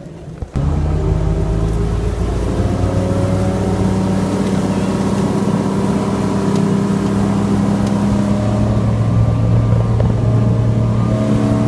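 Motorboat engine running at a steady speed, cutting in suddenly about half a second in. Its pitch shifts a little in the last few seconds.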